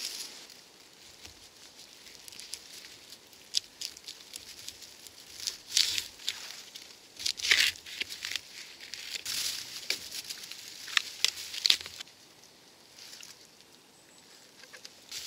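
Birch bark being cut with a knife and torn off a fallen birch log: irregular crinkly tearing and scraping strokes, after a few seconds of faint rustling, dying down near the end.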